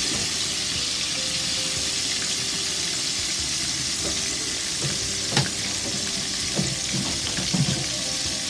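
Battered chicken pieces frying in hot oil in a pot on the stove: a steady sizzle with scattered pops and crackles, a sharper pop about five seconds in.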